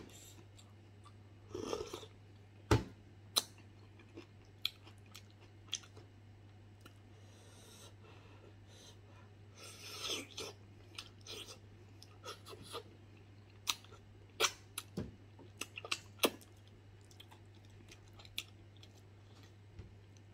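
A man chewing and smacking his lips on tender stewed beef foot and skin, with irregular sharp mouth clicks and small clusters of chewing noise. A faint steady low hum underneath.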